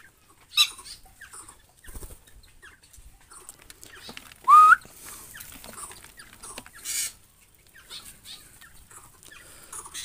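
Small aviary birds chirping on and off, with one loud rising whistle about halfway through.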